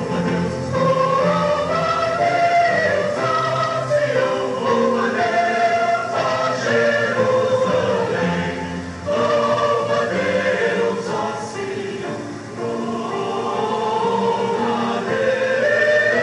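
Church choir singing a hymn, several voices holding notes together in harmony.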